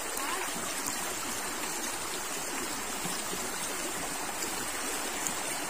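River water rushing steadily in a strong current.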